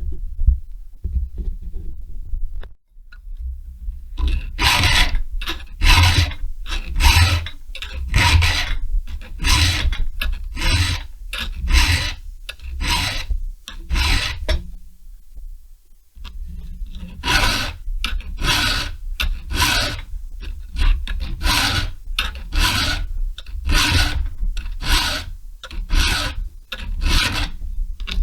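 Hand file rasping across a chainsaw chain cutter in steady strokes, a little under two a second, to reshape the tooth to a milling angle. The strokes begin about four seconds in, stop briefly near the middle, then carry on.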